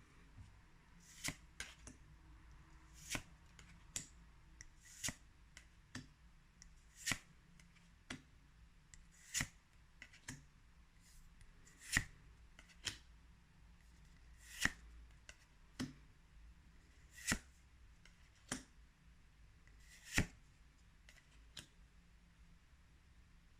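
Pokémon trading cards being flicked over one at a time, each a short, crisp card snap, roughly one every second or so.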